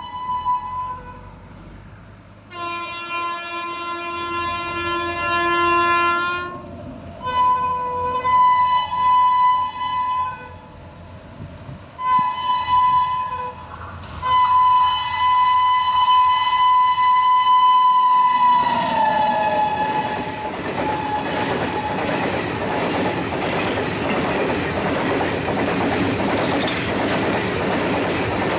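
WAP-7 electric locomotive's horn sounding a series of blasts, the last one long and dropping in pitch as the locomotive passes. After that comes the steady rumble and clickety-clack of the coaches rolling by.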